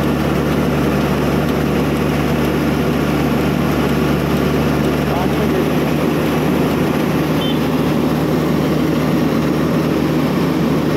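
Diesel engine and hydraulics of a horizontal directional drilling rig running steadily while it bores the cable hole, a constant low hum under a broad machine noise.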